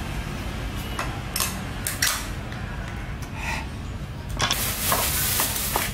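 Metal kitchen knives clicking and clinking as they are handled and set down on a tiled floor, with a longer scraping rustle in the last second and a half.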